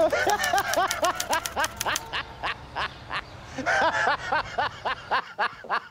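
Typewriter-style key clicks, a steady run of sharp taps, over two quick runs of short warbling pitched notes: one at the start and another near the end.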